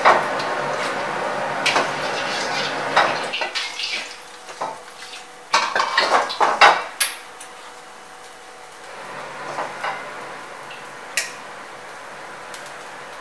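Metal ladle scraping and clanking against a carbon-steel wok on a gas wok range, over a steady rush that drops away a little over three seconds in. A cluster of sharp metal clatters comes around six seconds in, then only a few scattered knocks.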